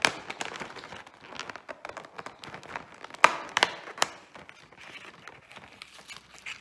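Cardboard door of a Lindt chocolate advent calendar being pried and torn open with the fingers: crackling, tearing card with a crinkle of paper. There are sharp cracks right at the start and three more between about three and four seconds in.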